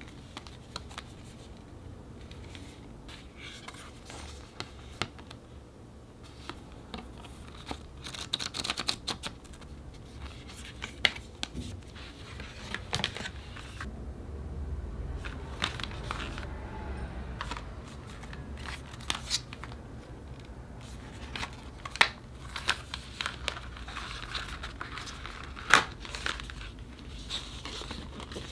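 Packaging being handled during an unboxing: soft crinkling and rustling of wrapping, with scattered sharp clicks and taps, the loudest near the end.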